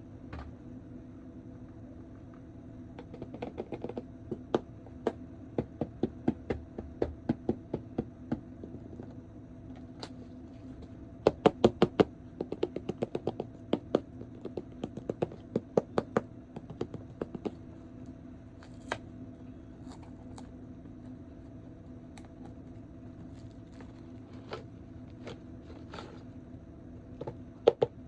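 Plastic clicking and tapping from handling a toy action figure and its packaging, in quick runs of clicks with pauses between, over a steady hum. The clicks start a few seconds in, thin out past the middle and come back in a short burst near the end.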